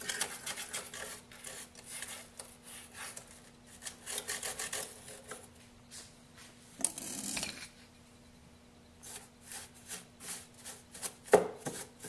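Paintbrush bristles sweeping caked coffee grounds off the plastic interior of an automatic coffee machine: quick repeated brushing strokes, with a short lull partway through and a couple of sharper knocks, the loudest near the end.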